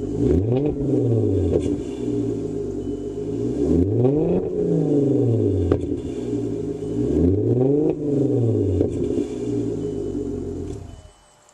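2001 VW Passat 2.8-litre V6 idling through an aftermarket cat-back performance exhaust, blipped three times, each rev rising quickly and falling back to idle. The sound cuts off near the end.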